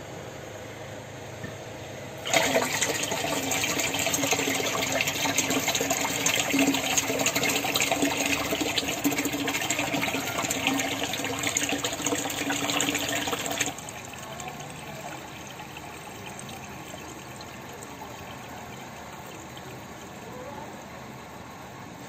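Water gushing into a plastic water tank, with a steady low hum under it. It starts suddenly about two seconds in and stops suddenly about eleven seconds later, leaving a fainter steady background.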